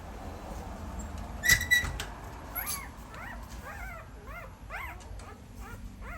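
Puppies crying: two sharp, high yelps about a second and a half in, then a run of short whimpers that rise and fall in pitch, about two a second.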